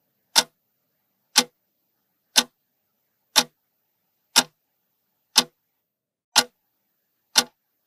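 Clock-tick sound effect counting down a timer: one short, sharp tick each second, eight ticks in all.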